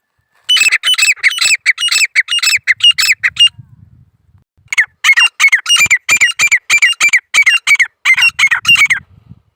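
Grey francolin calling: two loud bouts of rapid, harsh, repeated notes, about four a second, with a short pause between them.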